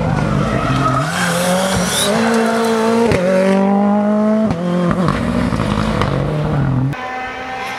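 Rally car engine accelerating hard as the car passes close by. Its pitch climbs and then drops at gear changes about three and four and a half seconds in, and the sound fades near the end.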